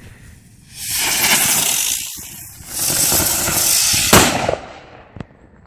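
A Gang Blaster ground firework hissing loudly as it burns, in two stretches of about a second and a half each. The second stretch ends in a sharp bang, and a small pop follows about a second later.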